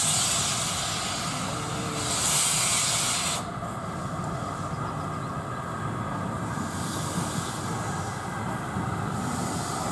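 LMS Black Five 4-6-0 steam locomotive approaching with its cylinder drain cocks open: a loud steam hiss that cuts off suddenly about three and a half seconds in as the cocks are closed. The locomotive's running rumble follows as it rolls closer.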